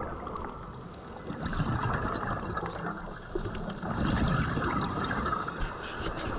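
Underwater bubbling and gurgling of a diver's exhaled air. It dips about a second in and grows louder again from about four seconds in.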